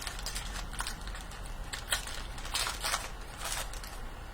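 Crinkling and tearing of trading-card pack wrappers as packs are opened, with cards shuffled in hand: a string of short crackling rustles, the longest about two and a half seconds in.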